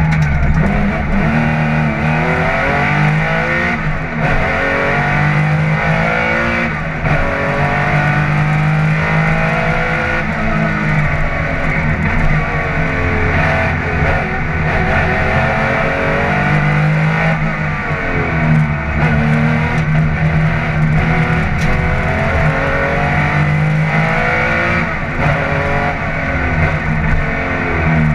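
Porsche 911 SC Group 4 rally car's air-cooled flat-six, heard from inside the cabin and driven hard. Its revs climb and drop again and again through the gears.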